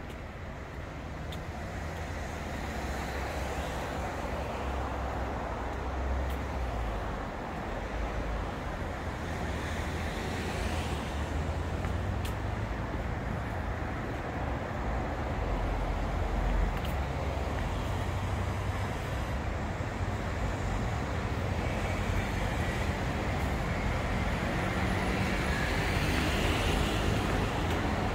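Steady road traffic noise with a low rumble, growing slightly louder along the way.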